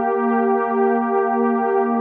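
Background synthesizer music: a sustained keyboard chord over a soft pulse about three times a second.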